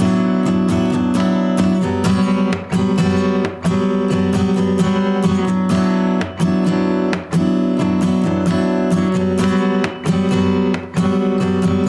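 Acoustic guitar strummed briskly in a steady rhythm, full chords ringing, with short dips in loudness every second or so.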